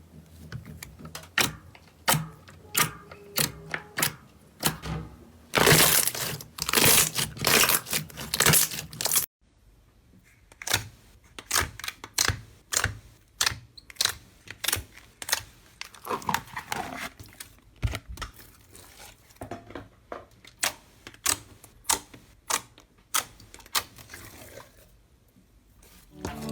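Slime being squeezed and pressed by hand, giving a run of sharp crackling clicks and pops, densest and loudest for a few seconds before a cut, then spaced clicks again.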